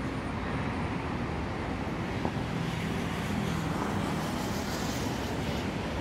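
Steady outdoor rumble of road traffic, with a low engine hum that stands out from about two and a half to four and a half seconds in.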